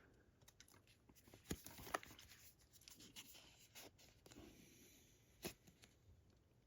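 Faint handling noises: light scraping and rubbing with a few soft taps as a boxed Blu-ray steelbook set is handled by hand.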